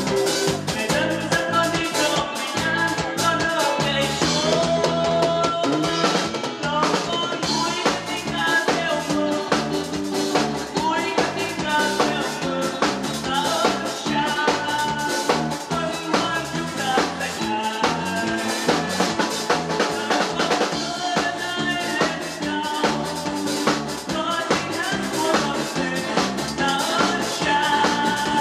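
Live band music: a man singing through a handheld microphone over a drum kit playing a steady beat, with bass drum and snare rimshots.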